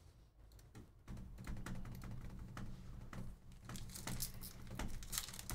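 Faint, irregular light clicking and tapping from hands at work at a desk, starting about a second in.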